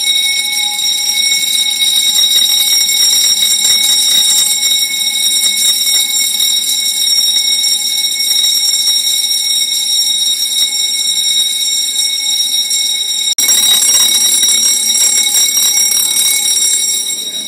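Building fire alarm sounding a loud, steady, continuous high tone, signalling the evacuation. It drops out for an instant about thirteen seconds in.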